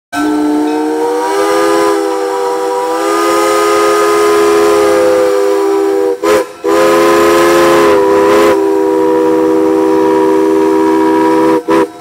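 Crosby three-chime steam whistle on a small steam locomotive sounding a steady three-note chord with steam hiss. There is a long blast of about six seconds, a brief break with a short toot, then another long blast of about five seconds, ending in a quick toot.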